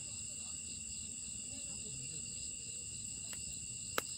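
Crickets chirring in a steady, high-pitched drone. A wood fire crackles softly in a steel fire pit, with one sharp pop near the end.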